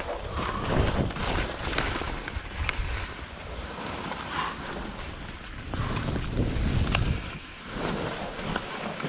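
Skis scraping and hissing over chopped-up, tracked snow through a run of turns, rising and falling in surges, with wind rumbling on the GoPro microphone.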